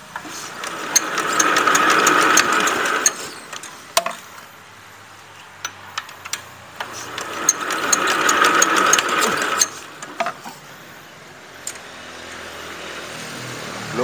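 Kubota ER75 single-cylinder diesel engine being hand-cranked twice, each spin building up for two to three seconds and then dying away without the engine catching. The engine won't fire, and the owner means to check the injector nozzle and pump plunger.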